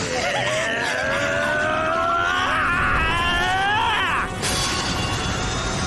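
A character's long battle scream, rising steadily in pitch for about four seconds before breaking off, over background music. It is followed by a sudden crash about four and a half seconds in.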